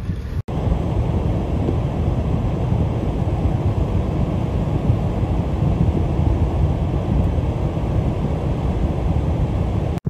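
Strong blizzard wind gusting against the microphone as a loud, uneven low rumble, broken once by a brief cut about half a second in.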